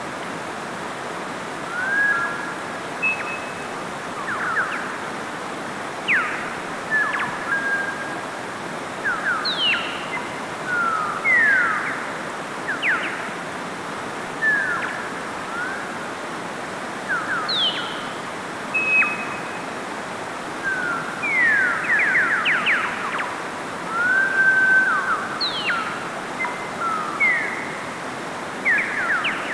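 Mountain stream rushing over rocks with a steady hiss, with birds calling throughout: short whistled notes and quick rising and falling sweeps, several every few seconds.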